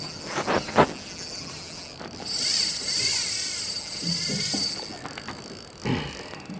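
Fishing reel's drag buzzing for about two seconds as a hooked fish pulls line off, with mechanical clicks from the reel before and after.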